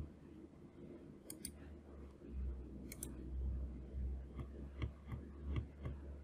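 Faint clicks of a computer mouse and keyboard over a steady low hum: two sharp clicks about a second in, another pair near three seconds, then a run of softer clicks in the last two seconds.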